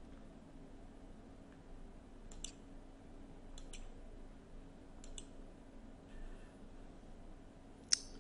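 Computer mouse clicked four times at intervals of a second or more, each click a quick double tick, advancing presentation slides; the last click, near the end, is the sharpest and loudest. A faint steady hum lies underneath.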